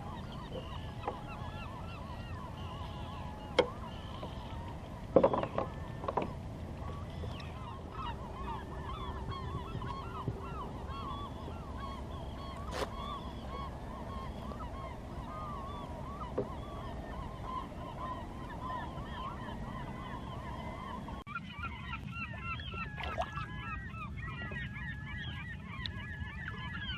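A flock of geese honking, many short overlapping calls. A few sharp knocks stand out, the loudest about five seconds in, over a steady low rumble that drops away abruptly about three quarters of the way through.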